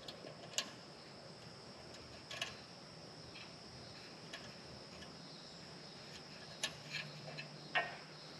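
Faint, scattered small clicks and taps from small nuts and hardware being handled and threaded by hand onto the studs of a tail light housing, over a steady faint high-pitched tone.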